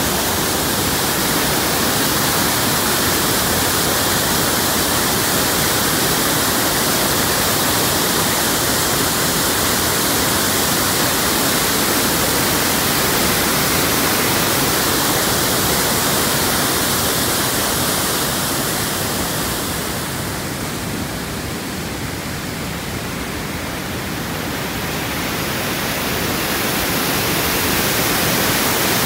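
Nipli Falls, a broad, low seasonal waterfall, pouring over a wide rock ledge close by: a loud, steady rush of falling water. It turns a little quieter and duller about two-thirds of the way through, then rises again.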